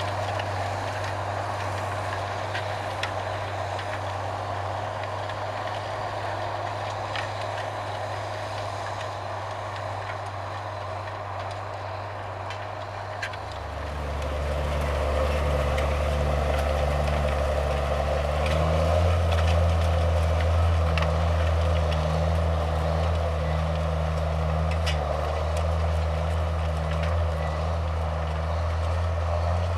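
Farm tractor engine running steadily. About halfway through it grows louder and a deeper note joins in.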